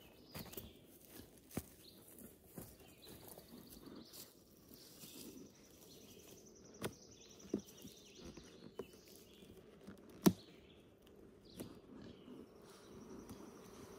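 Scattered clicks and knocks from a beekeeper handling a nucleus bee box and smoker as the box is opened, the loudest knock about ten seconds in. A high, rapid trill comes and goes in the background.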